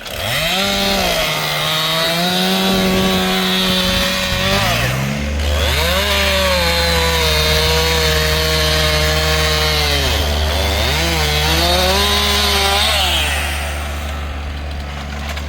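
Chainsaw running at high revs as it cuts into a storm-felled tree. The engine note drops twice, about five and ten seconds in, as the throttle comes off and then picks back up, and it eases off near the end. A steady low drone runs underneath from about five seconds in.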